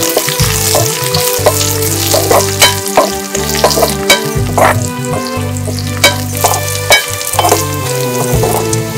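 Dried red chillies, curry leaves, onion and chilli flakes sizzling in hot oil as a tempering and being stirred, with frequent sharp pops and crackles.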